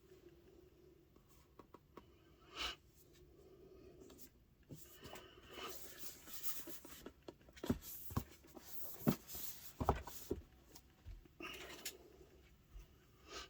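Packaging being handled and unwrapped by hand: rustling and rubbing with a run of sharp clicks and knocks, busiest around the middle.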